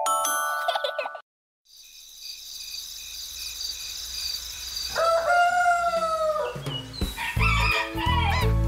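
A short mallet-chime jingle ends about a second in, and after a brief silence a high steady trill sets in. Midway a cartoon rooster crows once in one long call. Near the end a bouncy children's music track with a low beat and bird chirps starts.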